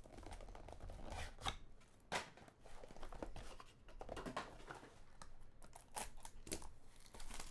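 Trading-card packaging being torn and crinkled open and cards handled: a run of short scrapes, rips and clicks.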